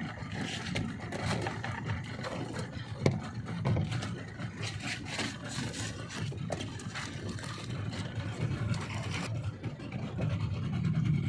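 Fishing boat's motor running steadily with a low rumble, with a few sharp knocks and clicks, the loudest about three seconds in.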